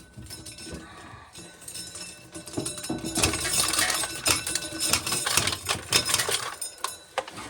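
Hand-cranked corn sheller stripping kernels from an ear of corn: a dense, rapid rattling clatter of kernels against metal, starting about two and a half seconds in and running for several seconds.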